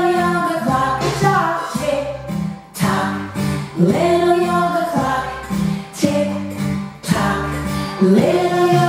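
A children's yoga song playing: a woman singing a melody over instrumental backing.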